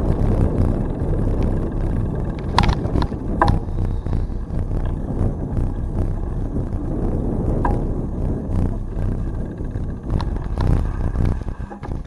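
Steady rumbling wind-and-road noise of a bicycle ride on a trail, with a few sharp clicks or rattles: once about two and a half seconds in, again about a second later, and again near eight seconds.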